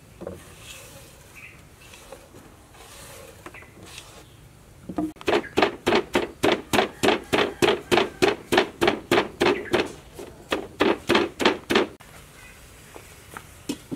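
Wooden pestle pounding sliced lemongrass, shallot, garlic, galangal and chili into a herb paste in a clay mortar. A steady run of dull thunks, about three strokes a second, starts about five seconds in and stops a couple of seconds before the end.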